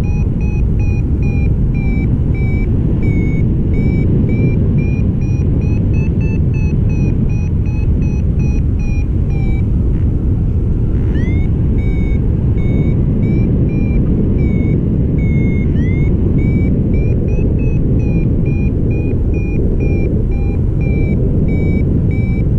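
Wind rushing over the microphone in flight, with a paragliding variometer beeping on top at a high pitch, about two to three short beeps a second, the sound it makes while the glider is climbing in lift. The beeping stops briefly about ten seconds in, then comes back with rising chirps.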